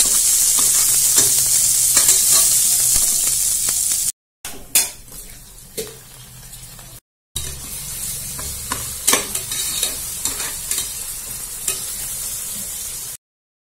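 Sliced onions and tomatoes sizzling in hot oil in a pressure cooker pot, stirred with a metal spatula that scrapes and taps against the pan. The sizzle drops out briefly twice and stops near the end.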